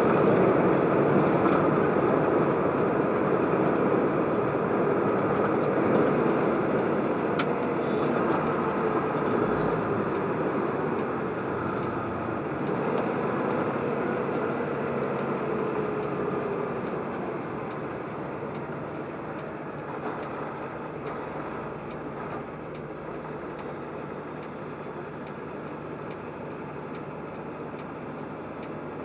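Steady road and engine noise inside a truck cab on the highway, fading slowly as the truck slows down. Later a faint, regular ticking sounds over it.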